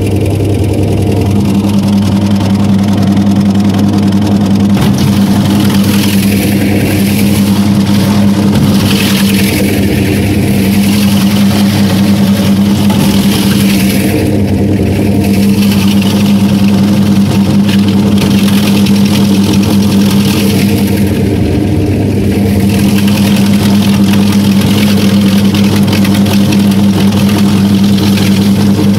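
Sovek LAN-5 electric root-vegetable fodder cutter running at full speed, its single-phase 1.7 kW motor giving a loud, steady hum. Fodder beets are fed in one after another and shredded by the four-knife cutting disc, heard as irregular rougher stretches of cutting noise over the hum.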